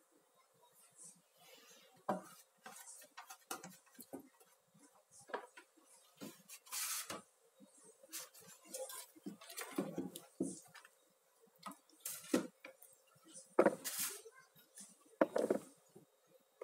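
Kitchenware handled on a tabletop: scattered light knocks and clinks of aluminium baking tins being moved and set down, with louder knocks near the end as a plastic ladle stirs in the bowl of batter.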